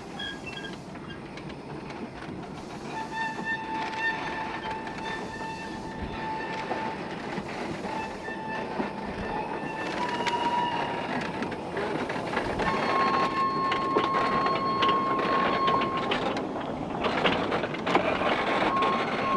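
A two-foot-gauge steam train of wagons rolling past on a curve, wheels clicking over the rail joints, with long high-pitched squeals from the wheels on the curve a few seconds in and again in the second half.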